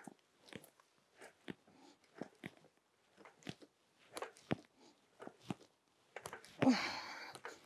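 Irregular clicks and knocks from a Mountain Trike lever-drive wheelchair as its levers are pumped to drive it over grass, with a loud, strained breath near the end.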